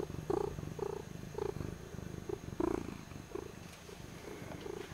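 Domestic tabby cat purring right up against the microphone, a steady rumble that swells and fades about twice a second.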